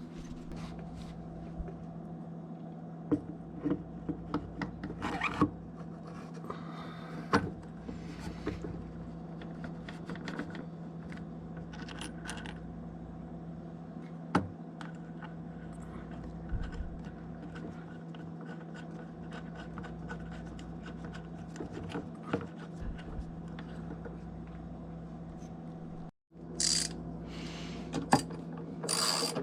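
Light metallic clicks and clinks of small parts being handled as the greased shear pin and propeller are refitted on a kayak pedal drive, over a steady low hum. After a brief cut near the end, louder sharp clicking starts.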